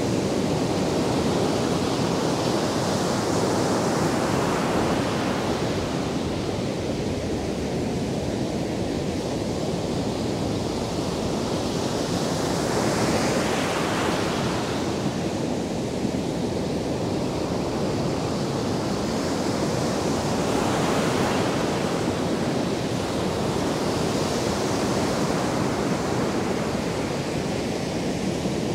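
Ocean surf breaking and washing up a sandy beach: a continuous rush that swells every several seconds as each wave breaks.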